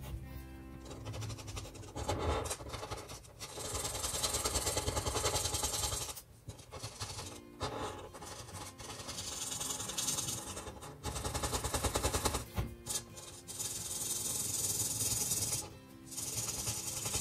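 Felt-tip marker rubbing back and forth on paper, close to the microphone: rapid rasping strokes in runs of a few seconds, with short pauses between. Quiet background music underneath.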